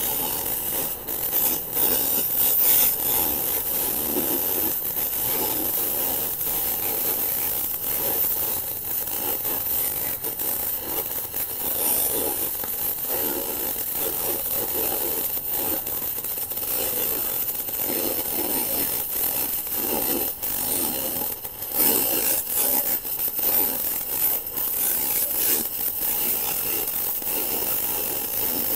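Arc of a Tenya Smartmig 265 MIG welder crackling steadily as it lays a bead on aluminium, with a couple of brief breaks about twenty seconds in.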